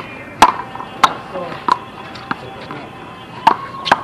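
Sharp slaps of a small rubber handball being hit by hand and bouncing off the wall and the court during a one-wall handball rally. There are about six cracks: the loudest about half a second in, and two close together near the end.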